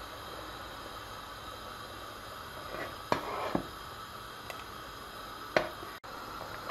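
Steady low hiss, with a metal ladle knocking against a stainless steel pot of thick tomato-pepper paste as it is stirred: a clunk and a short scrape about three seconds in, and another knock a little later.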